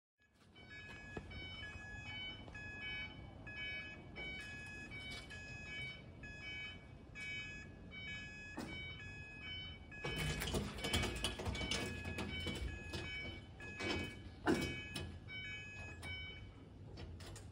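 Railway level crossing warning alarm sounding, an electronic tone repeating about twice a second while the barriers lower. From about ten seconds in, louder rumbling with a few sharp knocks joins it.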